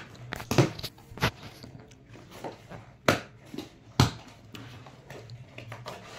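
Cardboard parcel box being torn open by hand: packing tape and cardboard flaps ripping, with a handful of sharp rips and snaps and rustling of the box between them.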